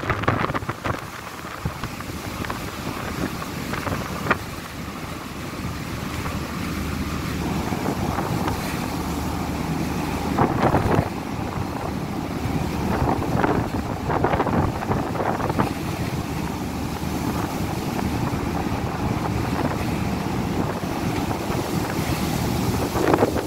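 Gale-force wind buffeting the microphone on a ferry's open deck, with louder gusts several times, over a steady low rumble.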